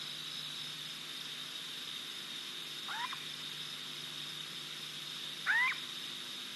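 Two short upward-sweeping animal calls about two and a half seconds apart, the second louder, over a steady high chirring of insects.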